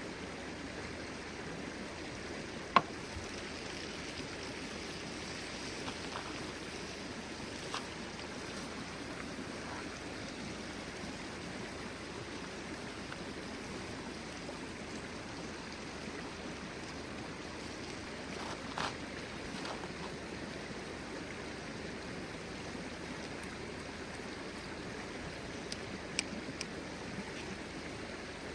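Steady rushing of a flowing stream, with a few short sharp snaps, the loudest about three seconds in.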